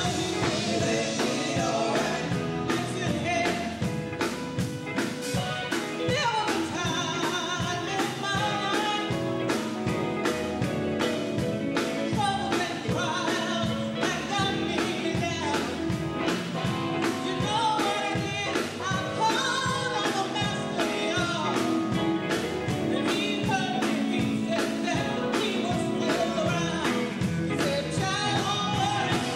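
Live gospel song: four women singing together into microphones, backed by a band of electric guitars and a drum kit keeping a steady beat.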